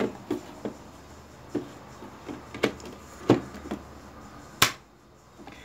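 Light plastic clicks and knocks as a lamp in a plug-in lampholder is pushed into a power strip socket, then one sharp click about four and a half seconds in as the strip's rocker switch is flipped on.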